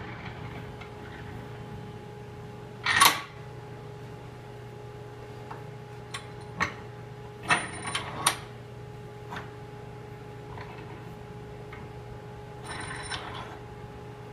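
Moxon vise in use: a wooden board knocks against the vise's wooden jaws and the metal handwheels clink as they are handled. A handful of sharp knocks and clicks, the loudest about three seconds in, some with a brief metallic ring, over a steady background hum.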